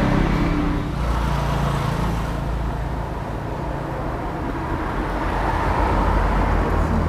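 Road traffic: a motor vehicle's engine running close by over a steady traffic hum, growing louder in the last couple of seconds.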